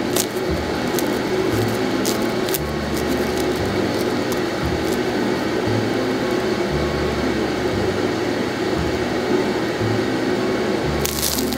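Crisp crust of a freshly baked salt roll made from bagel dough crackling under the fingers as it is squeezed: a few faint crackles, then a dense run of crackling near the end as the roll is torn open. Background music with a stepping bass line runs underneath.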